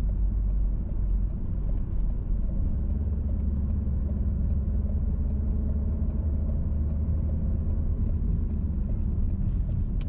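Car cabin noise while driving: a steady low rumble of the engine and tyres on the road, with a faint regular tick about every two-thirds of a second.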